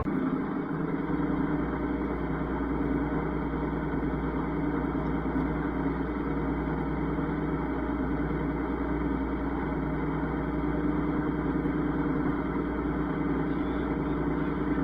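Combine harvester running steadily while harvesting corn, a constant engine and machinery hum.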